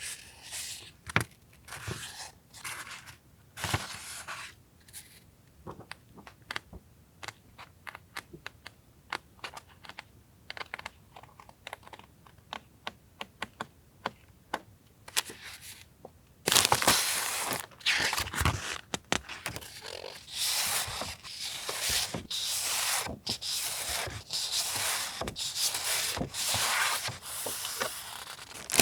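Paper and plastic packaging of stationery being handled: rustling and crinkling, with a stretch of light clicks and taps in the middle. Dense crinkling picks up again about two-thirds of the way in.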